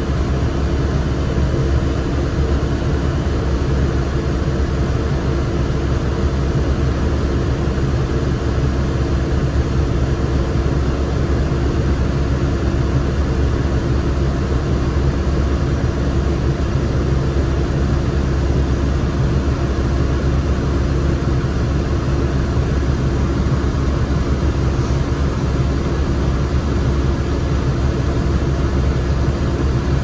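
2007 New Flyer D35LFR transit bus heard from inside the cabin: its Cummins ISL straight-six diesel running with a steady low drone, the pitch holding level.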